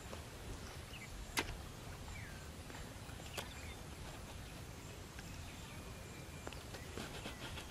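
Rural outdoor ambience: a steady low rumble with faint short bird chirps and a few sharp clicks, the loudest about a second and a half in and a small cluster near the end.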